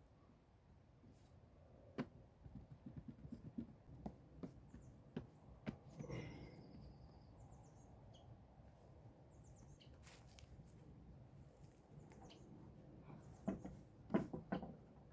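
Faint, scattered knocks and light clatter of things being handled, with small birds chirping now and then, including one falling whistle about midway.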